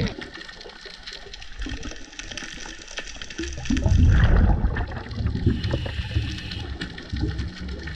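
Underwater: scuba regulator exhaust bubbles gurgling as the diver exhales, starting about three and a half seconds in and loudest just after, over a faint steady crackle of small clicks.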